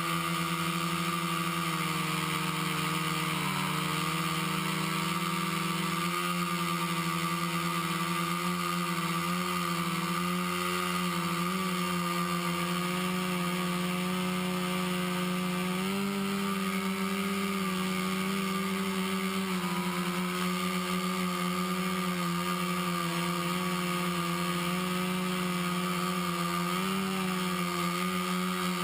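Quadcopter's four brushless motors (Exceed RC Rocket 2215 920Kv) spinning 10-inch propellers in flight: a steady, pitched hum whose pitch wavers slightly as the throttle changes.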